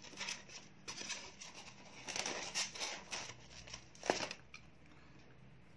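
Plastic takeaway food containers being handled: lids and tubs rustling and crinkling in short bursts, with a sharp click about four seconds in.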